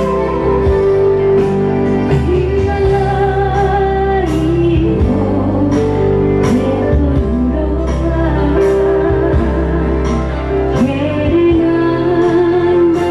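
A woman singing a slow song into a microphone, accompanied live on a Yamaha electronic keyboard playing held chords and a bass line. Her voice wavers with vibrato on long held notes.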